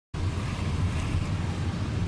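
Steady low rumble of a taxi driving on a rain-wet road, heard from inside the cabin, with a hiss of tyres on the wet surface; it cuts in suddenly from silence.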